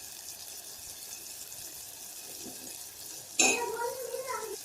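A spice paste of ground pepper, cumin and garlic frying in oil in a pan: a low, steady sizzle while it is sautéed. A short bit of voice comes in near the end.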